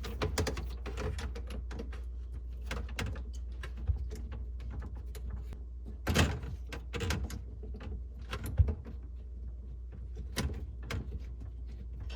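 Scattered clicks, knocks and rustles of a water line and its fitting being handled and connected to an under-sink inline water filter, with a louder knock about six seconds in and another a little before nine seconds.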